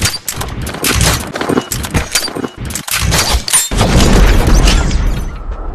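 Gunfire sound effect for a logo animation: a rapid, uneven burst of gunshots, then a heavy boom a little over halfway through that fades out, with a thin steady ring near the end.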